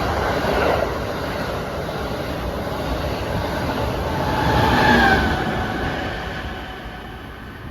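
MBTA train passing, its wheels rumbling on the rails, swelling about five seconds in with a brief faint wheel squeal, then fading as it moves away.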